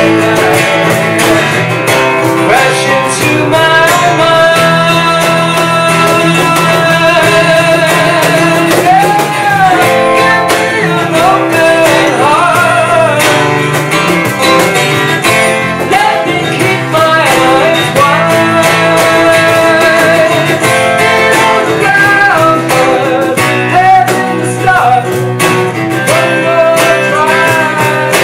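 Live acoustic band music: acoustic guitars strumming over an electric bass guitar, with a man singing a melody of held, wavering notes.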